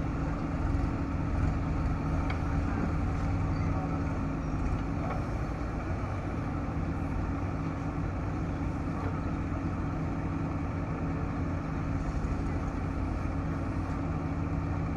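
Diesel engine of heavy machinery running steadily at a constant speed.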